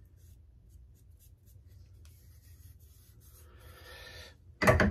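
Gloved fingertip rubbing anti-seize compound onto the threads of an upper receiver: faint scratchy rubbing that grows louder about three seconds in. A single sharp knock comes just before the end.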